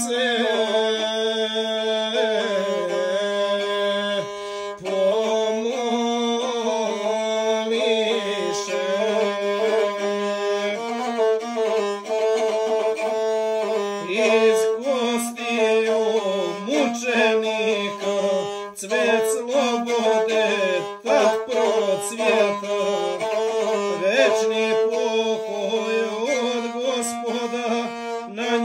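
Gusle, the single-string bowed Serbian folk fiddle, playing a wavering, stepping melody over a steady low note.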